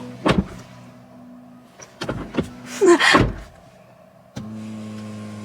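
A car door shutting with a thud, followed about four seconds in by a steady electric motor hum: the power steering column moving the steering wheel back toward the driver by itself once the door is closed.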